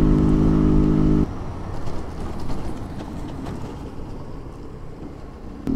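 Honda Pop 100's small single-cylinder engine running at a steady cruise. About a second in its note drops out suddenly, leaving a rush of wind and road noise.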